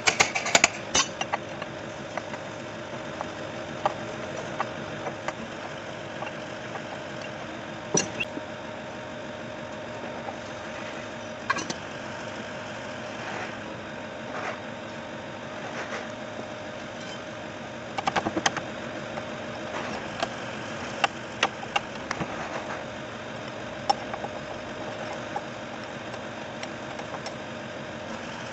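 Metal hand tools clinking and scraping against a truck's air dryer housing and valve block: scattered sharp clicks and clanks, a flurry at the start and another about two-thirds of the way through. Beneath them, a steady engine-like hum with one constant tone.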